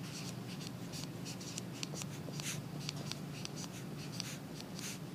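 Stylus writing on a tablet screen: a string of light taps and short scratchy strokes as an equation is written out, over a faint steady low hum.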